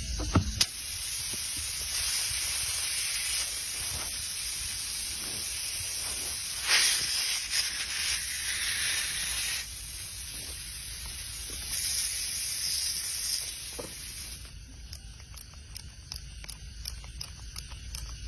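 Air hissing at a punctured tubeless tyre, a steady high hiss that swells louder twice and then stops about fourteen seconds in, leaving faint clicks.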